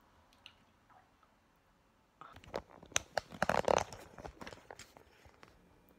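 Handling noise as fingers grab and move the recording camera: a burst of rustles, scrapes and knocks starting about two seconds in, thinning out to scattered clicks.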